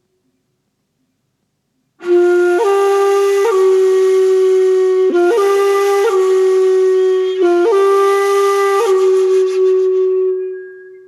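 Solo melody on a flute-like wind instrument. After about two seconds of silence it plays long, steady held notes with a few small steps in pitch, then fades away near the end.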